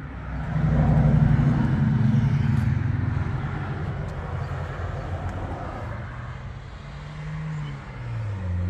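A motor vehicle's engine going by: a low hum swells about half a second in and slowly fades over several seconds, then another engine sound comes up near the end with a falling pitch.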